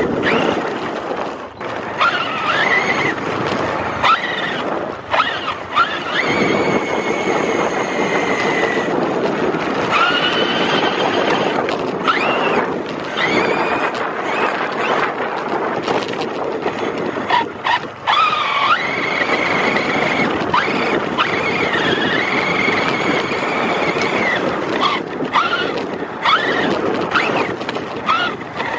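Radio-controlled monster truck driving over snow: its motor whines up and down in pitch as it speeds up and slows, over a steady rush of drivetrain and tyre noise.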